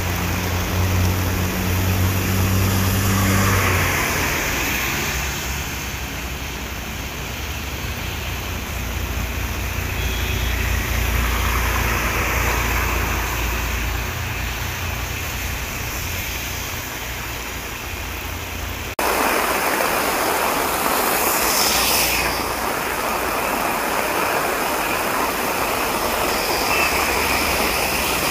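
Heavy rain pouring down steadily with vehicles passing on the wet road: a low engine hum in the first few seconds, then the rumble of a heavy truck and its tyres hissing through water. About two-thirds of the way through, the sound cuts abruptly to a denser, louder downpour.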